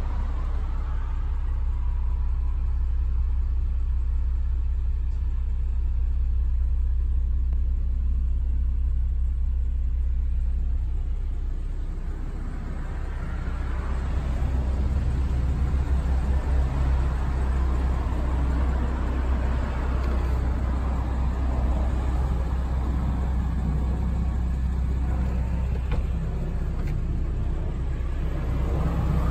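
Steady low rumble of a car, with a rougher hiss coming in about halfway through.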